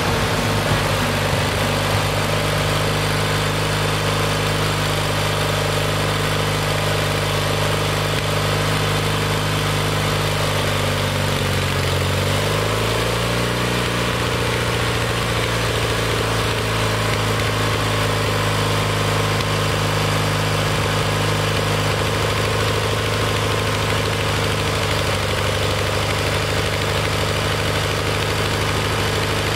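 Kohler Magnum 20 engine running steadily on its freshly rebuilt carburetor. About eleven seconds in, its speed sags briefly and then picks back up.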